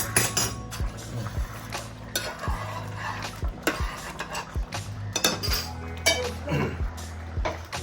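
A spoon stirring octopus kheema in a cooking pan, with irregular knocks and scrapes against the pan about once or twice a second.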